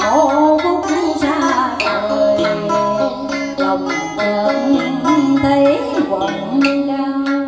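Cải lương accompaniment: a guitar and a đàn sến plucking a melody, with notes bent and wavering in pitch.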